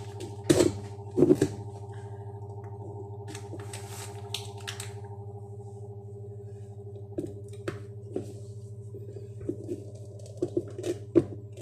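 A few sharp knocks and clicks and a brief rustle as hydraulic door closers and their packaging are handled, over a steady low hum.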